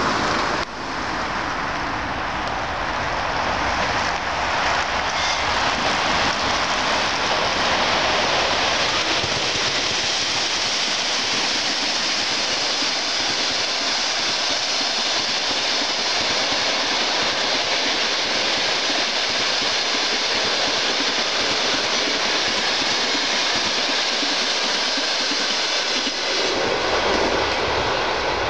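Passenger train hauled by a ChS7 electric locomotive running through a station without stopping: a steady, loud rush of wheels on rails that holds for over twenty seconds and fades near the end as the last coaches pass.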